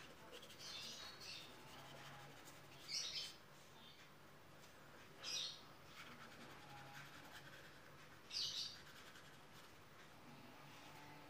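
Short bird chirps, four of them a few seconds apart, over a faint steady low hum.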